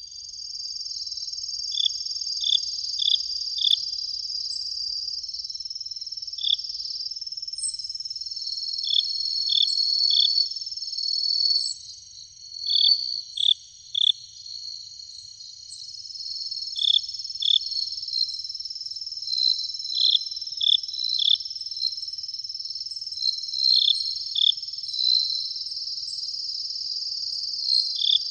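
Night chorus of insects: a steady, high-pitched trilling, with short chirps in groups of two to four every few seconds.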